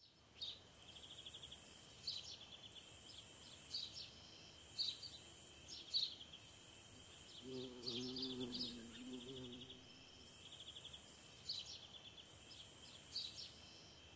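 Outdoor nature ambience: insects buzzing in regular pulses, each about a second long and repeating roughly every two seconds, with birds chirping and trilling in between.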